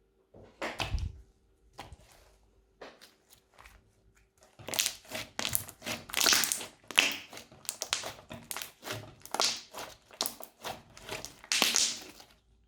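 Slime being squeezed and worked by hand: irregular crackly, squelchy crunches, a few spaced ones at first, then a dense run from about four and a half seconds in.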